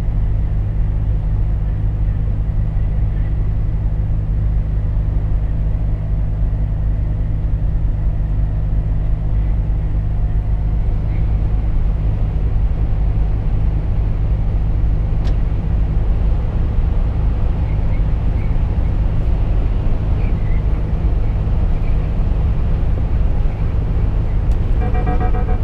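Steady low drone of a Volvo FH 460 lorry's 13-litre straight-six diesel cruising, with tyre and road noise, heard from inside the cab. A brief beep sounds near the end.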